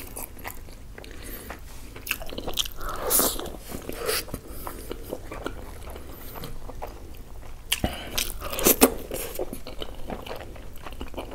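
Close-miked chewing and biting of puri soaked in red chicken curry: wet mouth sounds and small clicks, with louder bouts about three seconds in and again around eight seconds in.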